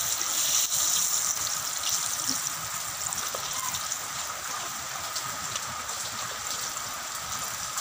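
Battered squid pieces deep-frying in a wok of hot oil: a steady sizzle with many small crackles, a little louder in the first couple of seconds.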